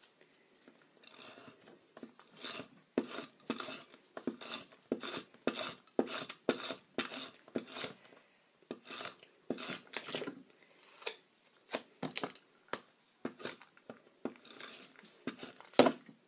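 Handheld glue roller (adhesive tape runner) rolled over a small paper card in many short, irregular strokes, a scraping click with each pass. Near the end it is set down on the table with a louder knock.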